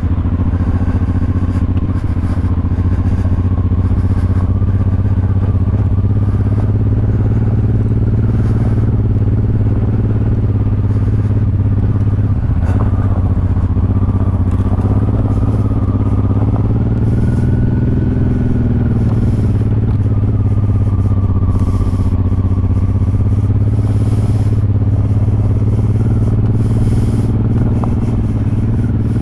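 Honda Transalp 600 V-twin engine running at low, fairly steady revs while the bike is ridden slowly off-road, the pitch rising and falling gently with the throttle. Occasional light clicks and scrapes sound over it.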